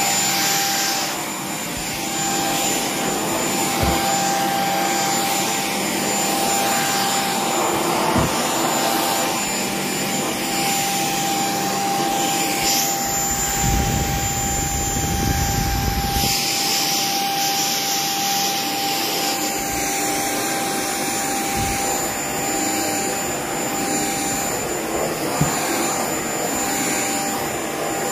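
Shark cordless stick vacuum running on an area rug, its motor holding a steady high whine over the noise of suction and brush roll. About halfway through a deeper rumble comes in for a few seconds.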